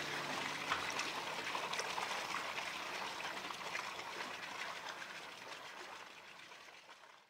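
Steady rush of running water with small splashy crackles, fading gradually to almost nothing; the last held note of background music dies away within the first second.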